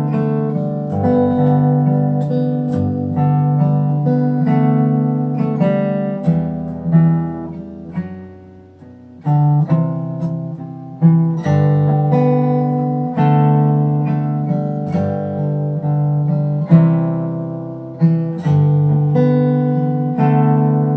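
Bentivolio 1501 all-solid acoustic guitar with Indian rosewood back and sides, playing chords. About eight seconds in, a chord rings out and fades, then sharp new chords start again.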